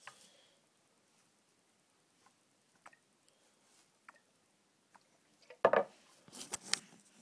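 Zippo lighter-fluid can and lighter insert being handled while the lighter is refilled: a few faint clicks and taps, then a louder run of clicks and rustling near the end.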